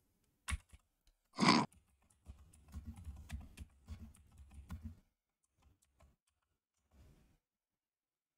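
Computer keyboard typing: a quick run of keystroke clicks for about two and a half seconds as a chat message is typed. A short rushing noise comes just before the typing.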